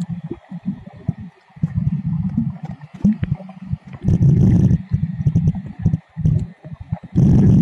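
Underwater sound through a submerged camera: choppy low rumbling and gurgling of water moving around the camera. Two louder rushes of bubbling noise come about four seconds in and near the end.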